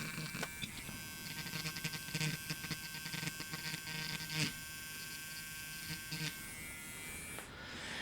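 A small handheld electric grinding pen whirring with a thin buzzing whine, its tip scratching intermittently as it grinds corrosion off a crusty component leg on a circuit board. It winds down near the end.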